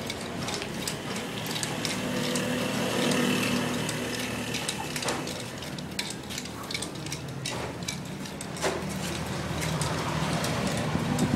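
Metal chain of a martial arts chain weapon rattling in many irregular sharp clicks as it is swung and spun, over a steady low drone.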